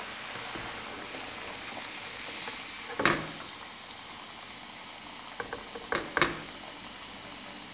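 Food cubes deep-frying in hot oil, a steady sizzle and bubbling. A slotted spoon knocks against the pan once about three seconds in, then clicks and knocks a few more times around six seconds in as the fried cubes are scooped out.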